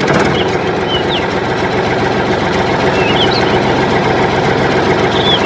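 The small motor of a model tractor runs steadily, driving a miniature water pump. Faint bird chirps sound a few times over it.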